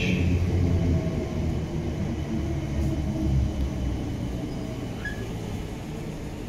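Southern Western Railway Class 455 electric multiple unit moving slowly alongside the platform, a low steady rumble that gradually gets quieter.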